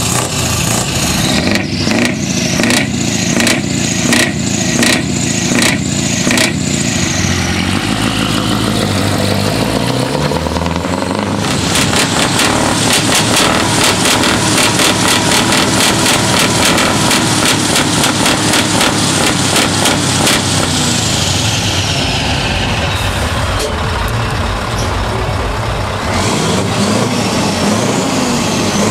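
Tuned heavy truck's diesel engine revved through loud exhaust pipes. It starts with a string of quick throttle blips, about two a second. About ten seconds in comes a rising rev, held high with rapid firing pulses for several seconds, then it falls away.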